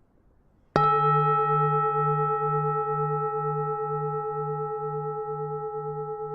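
Buddhist temple bell struck once, then ringing on and slowly fading, with a low hum that wavers about twice a second under several steady higher tones.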